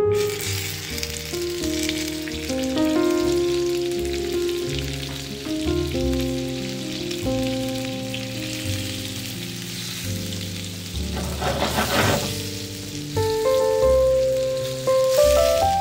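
Butter sizzling and bubbling as it melts into browning sugar in a frying pan while being stirred with a spatula. The sizzle swells briefly about twelve seconds in.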